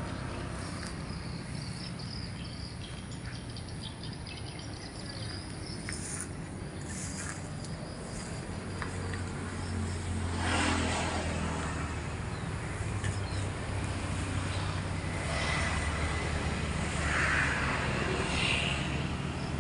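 Outdoor background: a steady low engine hum that grows louder about halfway through, with a few bird chirps.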